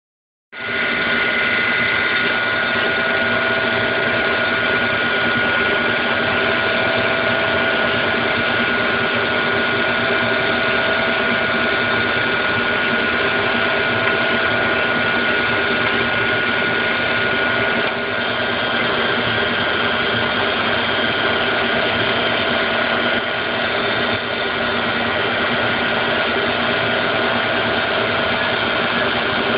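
Compressor of a Daikin (McQuay) EWLDJ235-SS chiller running steadily, with a strange noise that the owner wants to show. It is a loud, even mechanical noise with several steady tones through it, and it starts about half a second in.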